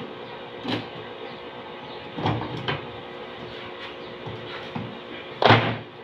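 Plastic knocks and clatters from a twin-tub washing machine's plastic top panel and lid being handled and lifted. There are a few light knocks, then a louder thump about five and a half seconds in.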